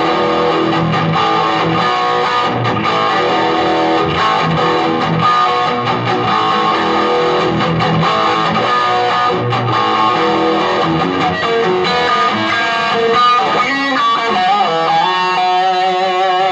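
Electric guitar played through a 15-watt Marshall MG15 combo with an 8-inch Celestion Super 8 speaker, on a harsh, distorted tone: continuous riffing and chords, then a few held notes near the end that are bent and waver with vibrato.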